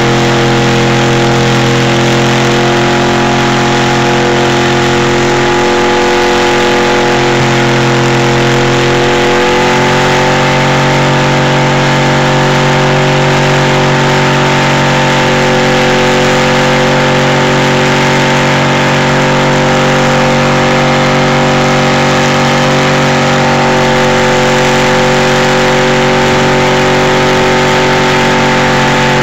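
Pickup truck engine running hard and steady at high revs as the truck churns through a mud pit; the engine note steps up in pitch about a third of the way through and holds there.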